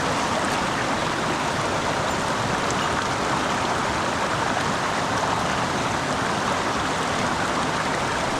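Mountain stream running high after a typhoon, its water rushing over rocks in a steady, even wash of noise.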